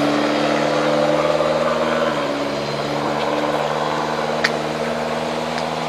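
Motor vehicle engine idling with a steady hum, with one short click about four and a half seconds in.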